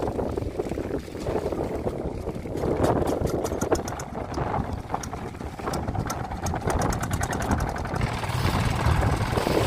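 A small boat's motor running steadily, with a rushing noise of wind and water over it.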